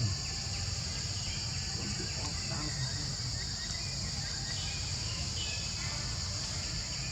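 Steady, high-pitched chorus of insects, with a low rumble underneath and a few faint short calls.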